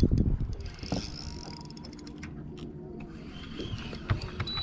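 Spinning fishing reel clicking and being cranked while a hooked bass is played, with a loud low rumble fading in the first second.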